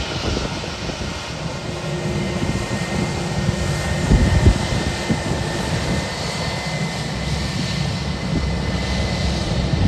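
Jet engines of an Airbus A321-200 airliner running as it rolls along the runway: a steady rumble with a thin, steady whine over it, swelling briefly about four seconds in.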